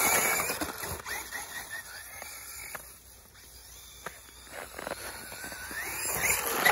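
Traxxas E-Revo 2.0 electric RC monster truck driving through snow. Its motor whine and tyre noise are loud at first, fade as it drives into the distance, then grow louder with a rising whine as it comes back near the end.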